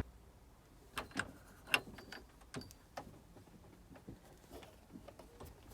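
Faint, irregular clicks and light knocks, about five clear ones in the first three seconds and fainter ones after.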